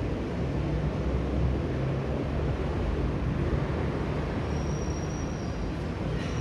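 Steady low rumble of background noise, with a faint thin high tone coming in for about a second past the middle.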